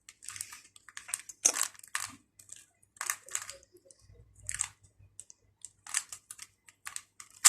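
Rubik's cube being twisted by hand: an irregular run of plastic clicks and short scraping rasps as its layers are turned.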